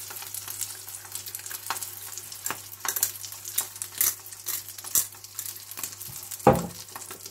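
A trout fillet sizzling in butter in a non-stick frying pan over low heat, with frequent small spits and crackles. One louder knock about six and a half seconds in.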